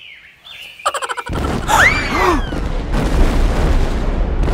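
Volcanic eruption sound effect: a short rattle of clicks, then a loud continuous rumble starting about a second in, with a few whistling tones that rise and fall over it.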